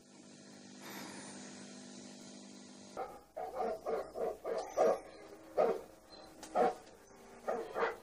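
A dog barking repeatedly in quick runs of short barks, starting about three seconds in.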